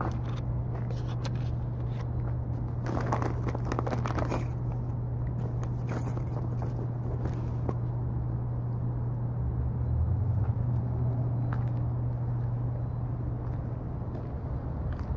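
Footsteps crunching in snow in a few short bursts, over a steady low hum.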